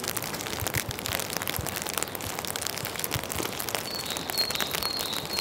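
Rain falling on a wet street: an even hiss with many close, scattered drop ticks. About four seconds in, a short high note starts repeating about twice a second.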